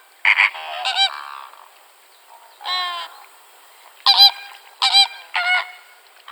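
Waterfowl calling: a run of several loud, harsh honks with short pauses between them.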